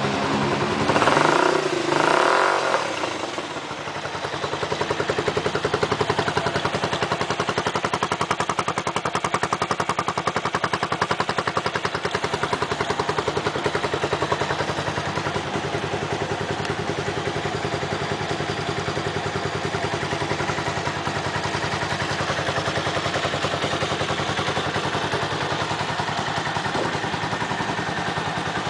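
Dafra Kansas 150 motorcycle's single-cylinder four-stroke engine revved twice, about one and two seconds in, then idling steadily with an even pulse.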